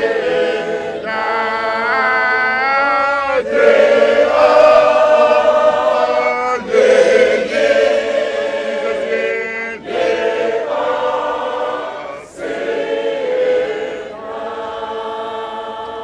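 Mixed choir of men and women singing a hymn in long held phrases of about three seconds each, with short breaks between them. The singing grows softer near the end.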